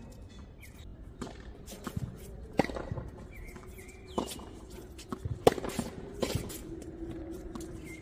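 Tennis ball being struck by rackets and bouncing on a hard court during a rally: a series of sharp pops about a second apart, the loudest about five and a half seconds in, with players' footsteps on the court between them.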